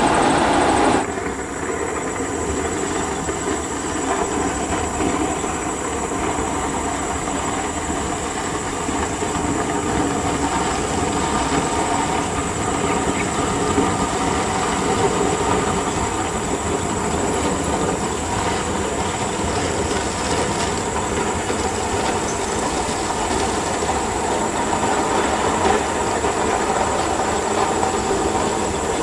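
Heavy Volvo truck hauling a large dump trailer on a dirt haul road, a steady mix of engine and running-gear noise. It is louder for the first second, then changes to a slightly quieter, even noise.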